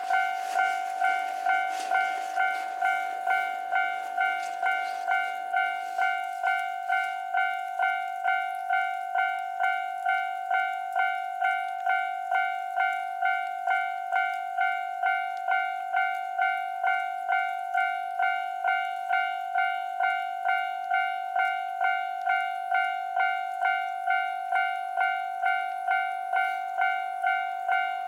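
Japanese railway level-crossing warning bell ringing: an electronic two-tone ding repeating evenly at about one and a half strikes a second. A faint rushing noise underneath fades away about six seconds in.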